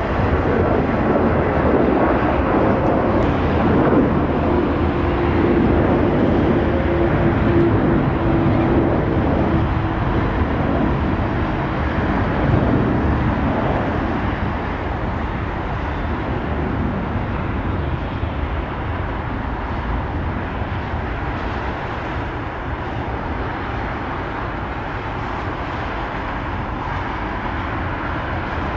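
Airliner jet engines running at taxi power, heard through steady wind noise on the microphone. A held hum sits under it for a few seconds early on, and the whole sound eases off a little after the middle.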